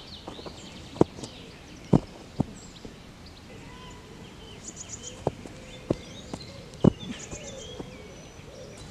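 Outdoor park ambience with small birds chirping in the trees, broken by about six sharp knocks at irregular intervals, the loudest about a second and two seconds in and near seven seconds.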